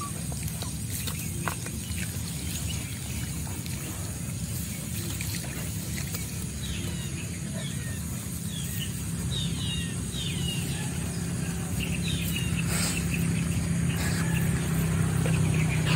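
A steady low motor hum that grows louder toward the end, with a run of short bird chirps in the middle.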